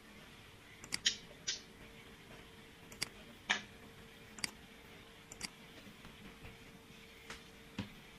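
Computer mouse clicking: about nine short, separate clicks at uneven intervals, over a faint steady hum.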